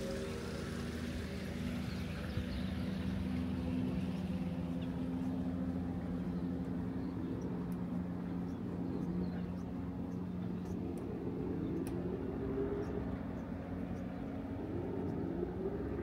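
A motor engine running with a steady hum, its pitch wavering slightly in the second half, with faint high ticks over it.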